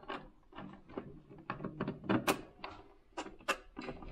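Insulated screwdriver turning the fixing screws of a plastic light switch faceplate into its back box: a run of irregular small clicks and scrapes, the sharpest about two and three and a half seconds in.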